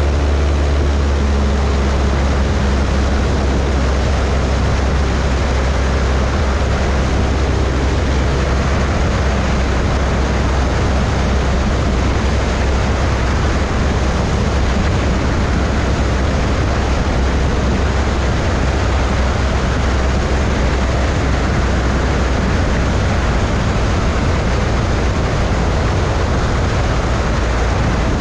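A 180 hp Cessna 172's engine and propeller run steadily in cruise flight: a strong low drone under loud wind rushing over a microphone mounted outside on the wing strut.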